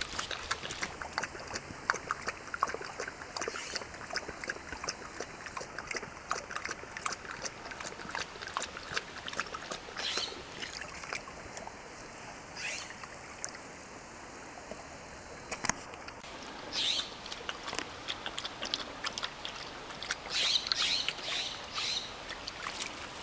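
A dog and a person on foot splashing through a shallow, trickling creek, with irregular steps and scuffs throughout and a few louder splashes later on.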